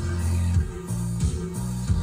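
Background music with a strong low bass line that changes note every half second or so, marked by short drum hits.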